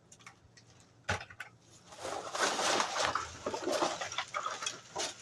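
Rummaging through discarded electronics scrap: a sharp knock about a second in, then a stretch of rustling with small clicks and clinks of plastic and metal parts being moved about.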